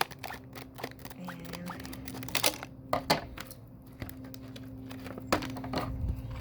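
Packaging of a jewelry pliers tool set being handled and opened: a string of small clicks and rustles, with sharper snaps about two and a half, three and five seconds in.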